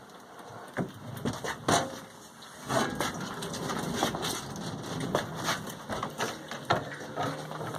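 Irregular knocks, clatter and scraping of equipment being handled and moved, a dozen or so sharp clunks over a rough shuffling noise that grows busier about three seconds in.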